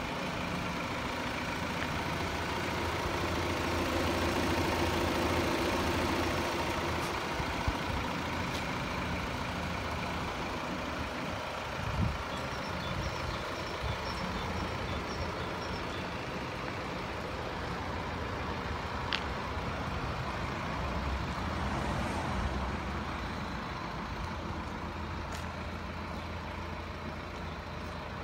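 Steady rumble of vehicle noise, with a faint run of high beeps, about two a second, starting about twelve seconds in, and a few light clicks and a thump.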